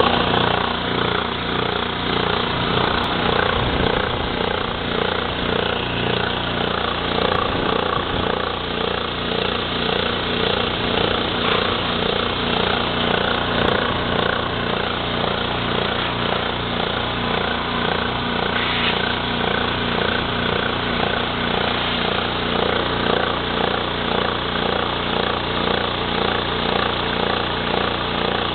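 SR-201 air compressor running steadily, its electric motor and piston pump giving an even, rapid pulsing.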